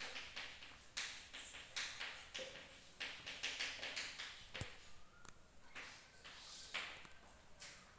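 Chalk writing on a chalkboard: an irregular run of short scratching strokes and taps as letters are written, with one sharp tap of the chalk about halfway through.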